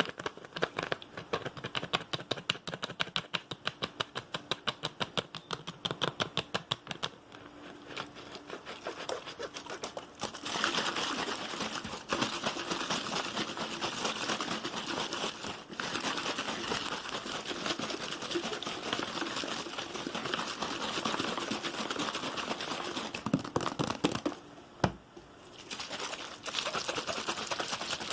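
ASMR tapping: rapid, even taps with fingertips or nails on objects, about six a second, for roughly the first seven seconds. After that comes a dense crackling, crinkling texture of many tiny clicks that pauses briefly near the end.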